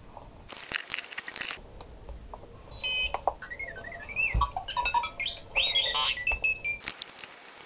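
FrSky Taranis Q X7 radio transmitter's small speaker playing its power-on tune, a run of short high beeps and stepped tones lasting about four seconds, as the radio starts up after the gimbal swap. A short rustle of handling comes before it and another near the end.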